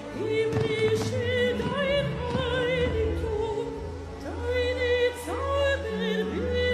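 A woman singing long held notes with a wide vibrato, sliding between pitches, over backing music, in an operatic style.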